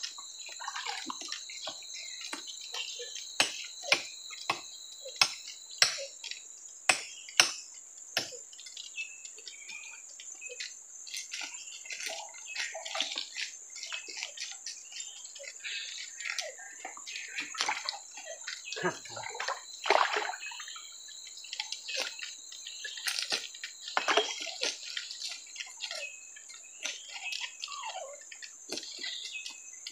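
Fish being cleaned with a knife on a river rock: a run of sharp clicks as the blade taps and scrapes, about one to two a second over the first eight seconds, then irregular scraping mixed with water splashing and trickling as the fish is rinsed. A steady high-pitched hum runs underneath.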